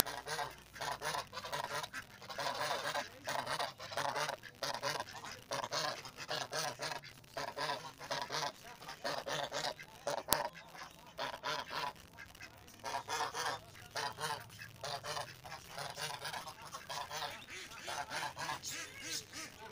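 A flock of domestic geese honking over and over, with ducks calling among them. One sharp click about ten seconds in.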